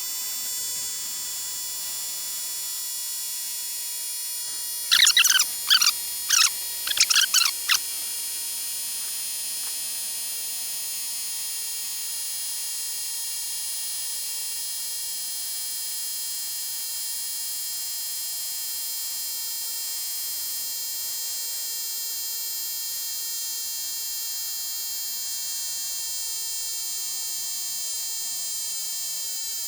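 EBOSSOM 15 Pro cordless portable tire inflator running steadily with a high electric whine as it pumps up a car tire from about 25 psi. About five seconds in, a quick run of six or so loud high chirps cuts through.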